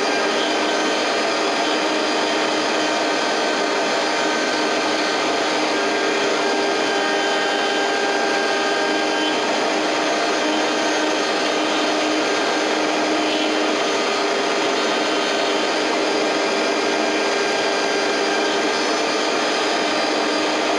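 CNC milling machine's spindle running as a thin cutter mills a wooden bust turning on a rotary fourth axis, with a dust-extraction vacuum running alongside. Several steady tones sit over an even hiss, with no change throughout.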